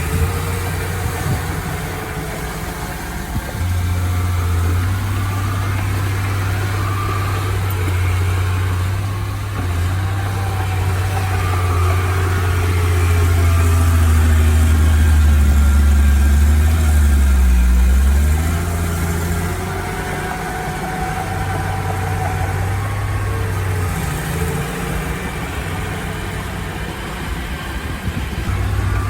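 Heavy diesel engine of earthmoving machinery running. It grows louder and works harder about halfway through, its pitch dips and rises, then it eases back to a steadier run.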